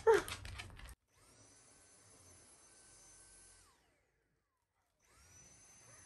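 Stick vacuum cleaner motor running with a faint, steady high whine. It winds down and stops a little past halfway, then spins back up about a second later and runs steadily again.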